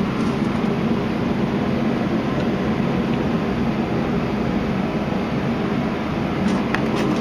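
A steady mechanical drone, even and unbroken.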